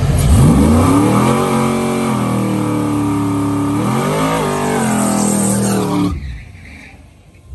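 Chevrolet TrailBlazer SS's V8 revved hard and held high during a burnout, rear tyres spinning and smoking. The revs dip about four seconds in, climb again, then drop away about six seconds in.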